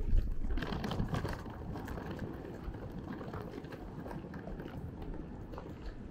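Outdoor city street ambience on a pedestrian plaza: a steady low rumble of traffic and passers-by, with a few light knocks in the first couple of seconds, likely footsteps.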